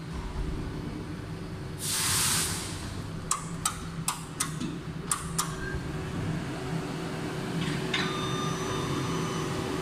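H-Bahn Dortmund suspended monorail cabin coming into the station behind the platform doors, with a steady low hum. About two seconds in there is a short loud hiss of air, then a quick run of sharp mechanical clicks. From about eight seconds a steady high electronic tone sounds.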